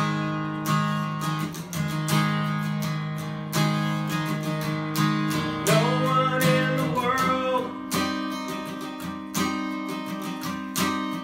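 Acoustic guitar strummed in steady chords, with a man's voice singing briefly about six seconds in.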